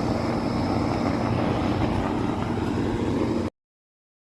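1977 Carrier Compact 38CQ heat pump outdoor unit running: a steady mechanical hum with fan noise. It cuts off suddenly about three and a half seconds in.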